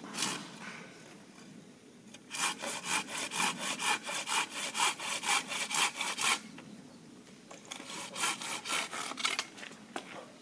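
Hand saw cutting through wood in quick back-and-forth strokes, about four to five a second. One run lasts about four seconds, and a shorter run follows after a brief pause.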